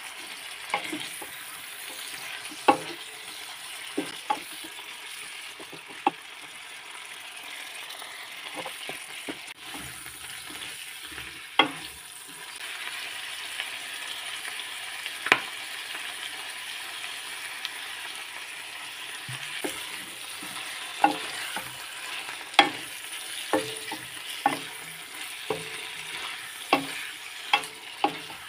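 Chicken livers sizzling in a nonstick wok while a wooden spatula stirs them, with irregular sharp knocks and scrapes of the spatula against the pan. The sizzle grows louder a little before halfway, as soy sauce is poured in.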